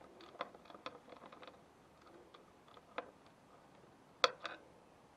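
Scattered light clicks and taps of hands working a cable and its fitting on a van roof, with one sharper click a little past four seconds in.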